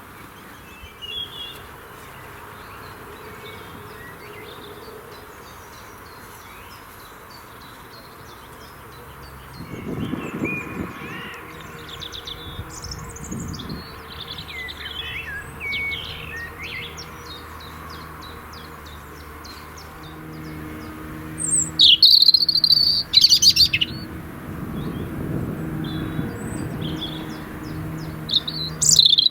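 Several songbirds singing and calling, with short chirps and trills throughout. A loud, close song phrase breaks out about three-quarters of the way through, over a low rumble that comes and goes.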